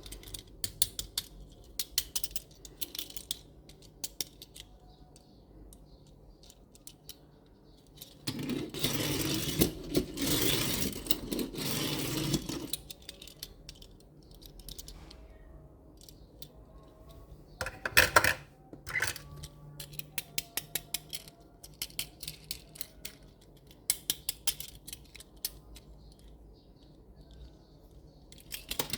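Small die-cast toy trucks being handled: many light metallic clicks and clinks from the toys' parts, with a longer stretch of denser scraping noise for about four seconds near the middle and a louder clatter about 18 seconds in.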